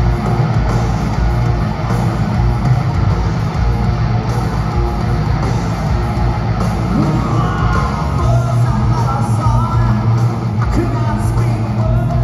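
Hard rock band playing live: electric guitars, bass guitar and a drum kit, loud and steady, with a lead vocal singing in the second half.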